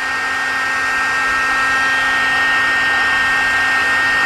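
Electric heat gun running steadily: a constant rush of blown air with a steady high whine from its fan motor.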